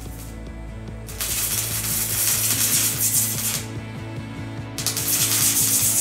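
MIG welder arc crackling while welding a steel patch onto a rusted car body panel, in two runs: the first starting about a second in and stopping after a couple of seconds, the second starting near the end.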